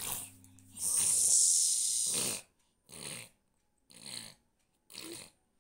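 Toddler blowing and sputtering through her lips with milk in her mouth: one long spluttering blow about a second in, then three short ones about a second apart.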